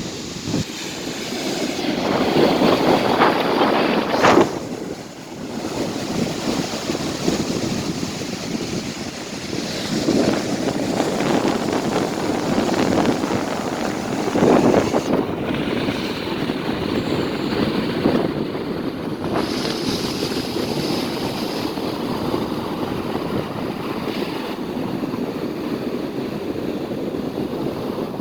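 Stormy sea surf breaking on a beach as a steady rushing noise, swelling with louder waves a few times. Wind buffets the microphone.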